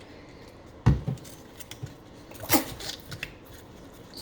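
Slime-making supplies being handled on a tabletop: a sharp thump about a second in as something is set down, then small clicks and rustles and a brief squeak that falls in pitch.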